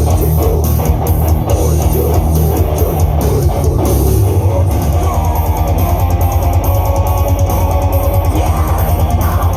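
Rock band playing heavy metal: electric guitar, bass and drum kit. About halfway through, the low end turns into a fast, even pulse.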